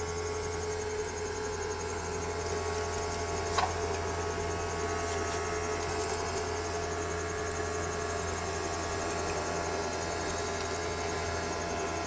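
Homemade bottle vacuum cleaner's small DC motor running steadily: a constant hum with an airy hiss of suction as it picks up foam crumbs. A single brief click about three and a half seconds in.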